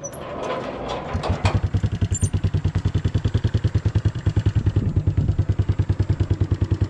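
A few clicks and knocks, then a small step-through motorbike's engine starts about a second in and runs with a steady rapid putter.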